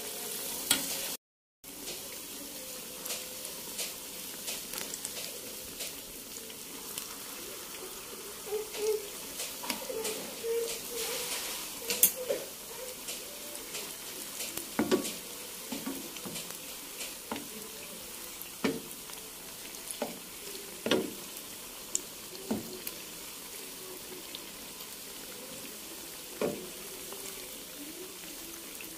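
Battered fermented-cassava fritters sizzling steadily in hot oil in a frying pan, with a spatula tapping and scraping against the pan now and then as they are moved and turned.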